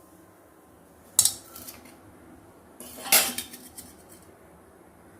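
Metal kitchenware clattering: a sharp clink about a second in, then a louder short clatter of several knocks around three seconds in.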